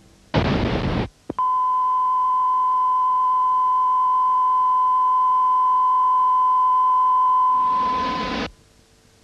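A short burst of TV static hiss, then a long, steady, high-pitched test tone of the kind broadcast behind a 'do not adjust your receivers' card. Static swells again over the tone's last second, and then both cut off.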